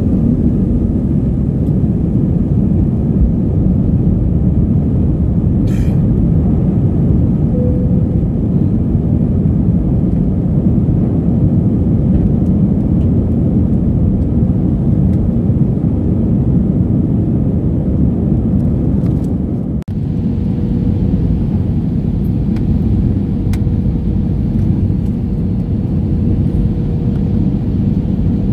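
Steady engine and airflow rumble heard inside a jet airliner's cabin near the wing during the takeoff roll and climb-out. About twenty seconds in it cuts off abruptly and gives way to the same cabin rumble during descent, now with a faint steady hum under it.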